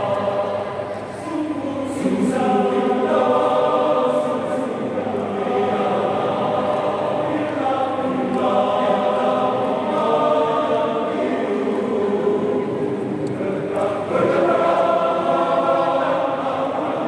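A choir singing in several voice parts, with long held notes; the sound dips briefly about a second in and swells again at new phrases near two and fourteen seconds.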